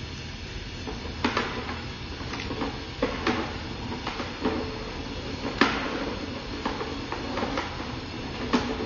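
Sewer inspection camera being pushed along a drain line: irregular sharp knocks and clicks, about eight of them, over a steady background noise.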